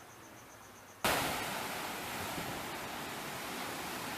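Ocean surf breaking on a lava rock shoreline: a steady rush of wave noise that cuts in suddenly about a second in, after a quiet start.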